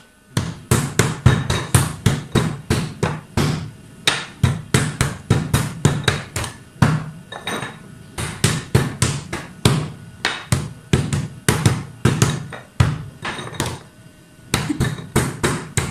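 Hands slapping a wooden tabletop in a fast, steady rhythm, about three to four dull knocks a second, with a short break near the end.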